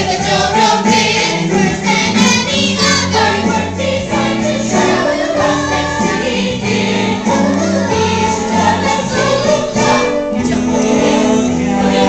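A group of young voices singing a musical-theatre ensemble number together in unison, holding notes over an accompaniment with a steady bass line.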